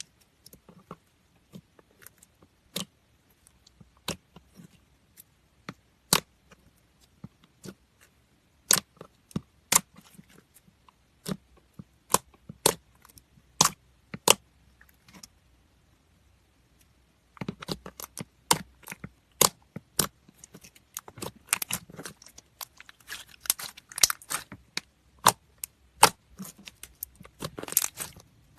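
Slime being worked by hand, giving sharp wet clicks and pops as air pockets burst: scattered single pops through the first half, a brief pause, then a denser run of crackling clicks.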